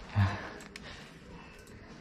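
A short murmur of a voice near the start, then quiet room tone with a few faint clicks.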